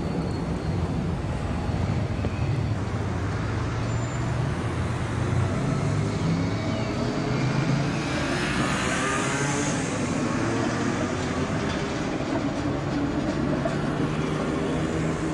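City street traffic with a steady low hum, as a tram moves along the street; about eight to ten seconds in, a brighter rushing noise swells and fades as the tram rolls past.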